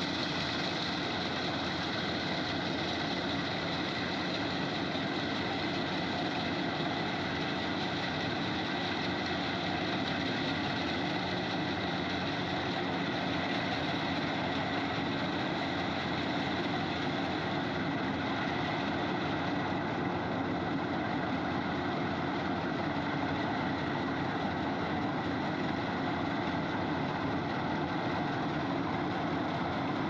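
Kubota combine harvester running steadily while harvesting rice, a continuous, even engine and machinery drone with no change in speed.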